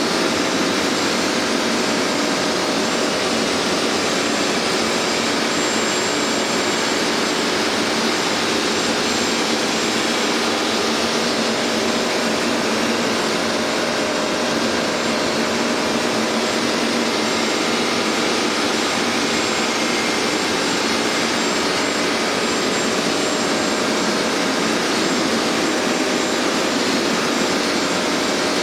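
Hoover MaxExtract carpet cleaner running, its suction motor giving a steady, loud rush of air with a faint high whine.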